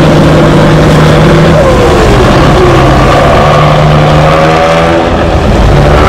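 Heavy diesel engines of wooden fishing boats running hard under way, a loud deep drone with the pitch dipping and rising in places as the boats manoeuvre out, their stacks pouring black smoke under load.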